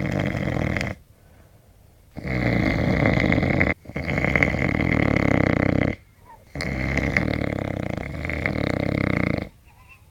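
A sleeping man snoring loudly: long, noisy snoring breaths one after another, with short quiet pauses between them.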